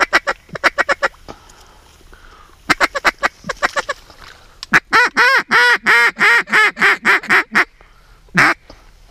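Duck call blown in a series of quacks imitating a hen duck: quick bunches of short quacks, then a run of about a dozen quacks at roughly four a second, then a single longer quack near the end. The hunter is calling to ducks circling overhead.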